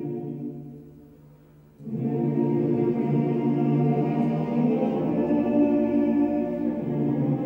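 Background music of slow, long-held chords: one chord fades away, and about two seconds in a fuller chord with choir-like voices comes in and holds.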